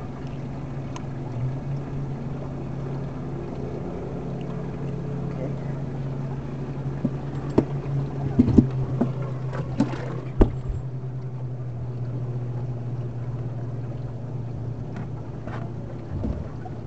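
Boat motor running steadily at a constant pitch while under way. A few sharp knocks and clatters come in a cluster around the middle, and a couple more near the end.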